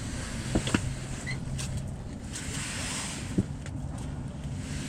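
Wind buffeting the microphone, a steady low rumble, with a few sharp knocks: two close together about half a second in and one just past three seconds.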